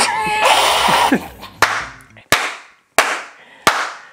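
A man laughing loudly for about a second, then four sharp bangs about two-thirds of a second apart, each with a short ringing tail.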